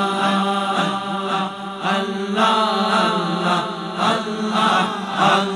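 A group of men chanting zikr, repeating 'Allah' in a steady rhythm over a steady low held tone.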